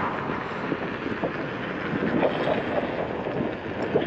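Steady wind rush over a motorcycle rider's helmet and microphone while riding.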